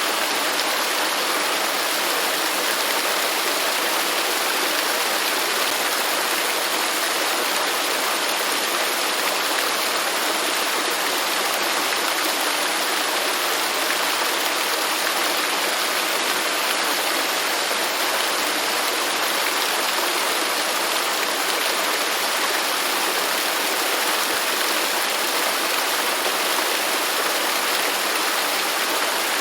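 Waterfall: falling water rushing in a steady, unbroken wash of sound.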